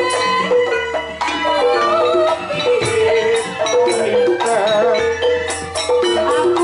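Live jaranan gamelan music: metal mallet instruments play a steady melody over drums and rattling percussion, with a wavering melody line on top and deep gong tones coming in about a second in and again about five seconds in.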